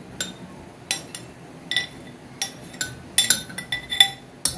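Metal spoon clinking against glass as mango pulp is scraped from a glass bowl into a glass blender jar. About a dozen sharp, ringing clinks at irregular intervals, coming faster in the second half.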